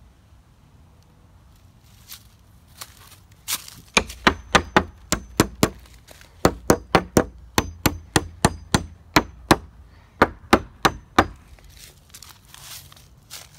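Claw hammer striking nails into a wooden fence board in quick runs of blows, about three a second, each blow with a short metallic ring. The strikes start about four seconds in, pause briefly, then carry on until shortly before the end.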